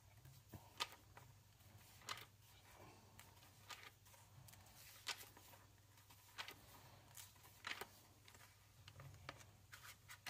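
Thin Bible-paper pages of a small Cambridge Pitt Minion KJV Bible turned and flipped by hand, giving faint, irregular rustles and flicks about once a second or so.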